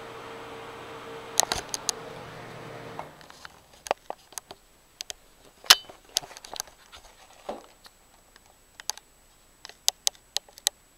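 Ceiling exhaust fan running with a steady airy hum and a single held tone; a few sharp clicks come about a second and a half in. The fan sound stops abruptly about three seconds in, and scattered clicks and knocks follow.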